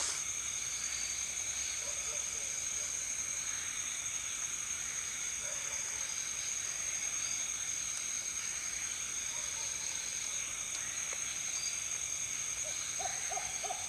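A steady, high-pitched night chorus of insects in a tropical bamboo forest. Near the end, a night bird starts a quick, even run of short hoots.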